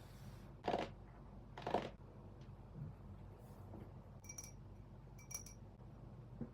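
Photocards and plastic binder sleeves being handled: two soft rustling swishes in the first two seconds, then two short, ringing clicks about a second apart.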